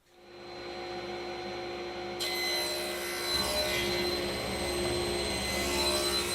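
Woodworking power saw spinning up to speed, then cutting into wood stock about two seconds in, the blade noise joining the steady motor hum.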